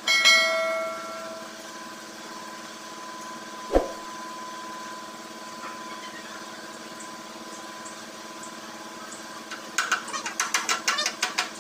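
A small hammer strikes the metal top tank of a radiator, and the tank rings with several tones that fade over about a second. A single dull knock follows a few seconds later, then a quick run of about ten light taps near the end. A steady low hum runs underneath.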